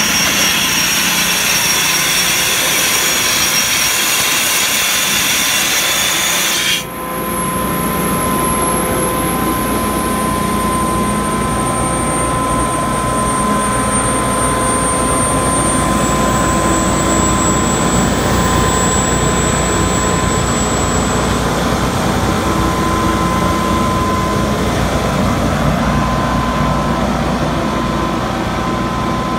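Quincy 50 hp rotary screw air compressor running, with a loud hiss that cuts off suddenly about seven seconds in; after that it runs on steadily with a low hum and a steady whine.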